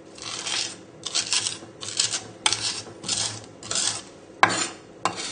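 Kitchen knife blade scraping and pressing chopped garlic with salt against a wooden chopping board, mashing it into a paste: a run of gritty, crunching strokes about one and a half a second, with a few sharp taps of the blade on the board.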